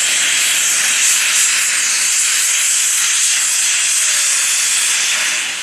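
LNER A4 Pacific steam locomotive Bittern blowing off steam from its cylinder drain cocks: a loud, steady hiss that eases slightly near the end.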